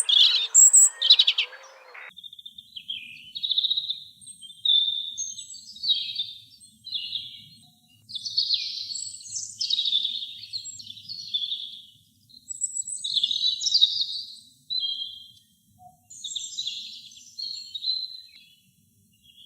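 Robin singing: a run of short, varied, high warbling phrases with brief pauses between them. In the first two seconds a different recording with a hissy background and louder calls plays, cutting off abruptly.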